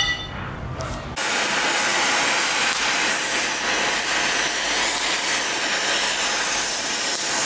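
A steady, loud hiss of a power tool working on the steel frame, starting about a second in and holding even.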